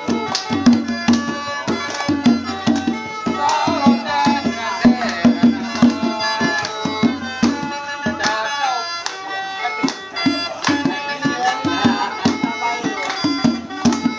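Lao village rain-dance music played live: a hand drum beaten in a quick, steady rhythm over a sustained droning tone, with men's voices singing and calling out now and then.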